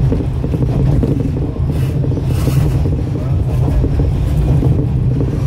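Diesel railcar running at speed, heard from inside the passenger cabin: a steady low engine drone mixed with the rumble of the wheels on the track.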